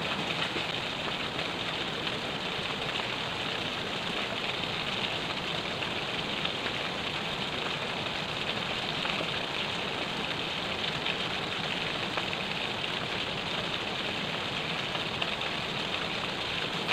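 Steady hiss of river water flowing, even and unbroken throughout.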